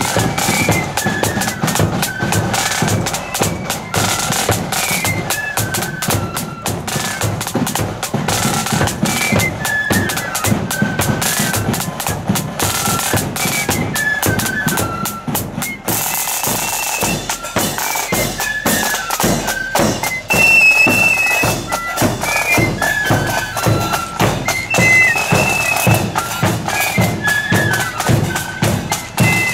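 Marching flute band playing a tune: flutes carry the melody over snare drums and a bass drum beating steady marching time.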